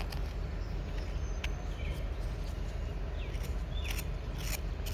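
Small birds chirping now and then, with sharp clicks of a whittling knife cutting into wood, over a steady low rumble.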